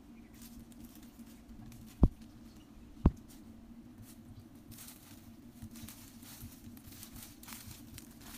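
Two sharp puffs from a bamboo blowpipe, about a second apart, followed by light rustling of leaves and twigs.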